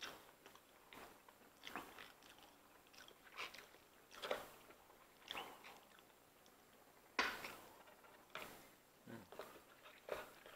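Faint mouth sounds of people eating lobster and garlic noodles: chewing in short, scattered bursts, with a louder one about seven seconds in.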